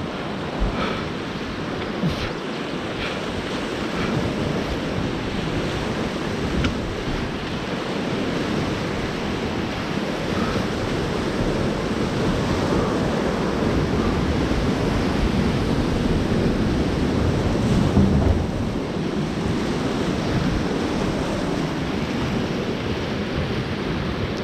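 Whitewater rushing steadily around a sweep boat running a river rapid, with wind buffeting the microphone and a few light knocks.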